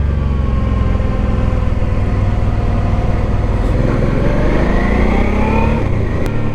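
Motorcycle engine running in first gear on a steep downhill, steady for most of the time; about four seconds in its pitch rises for a couple of seconds, then drops back.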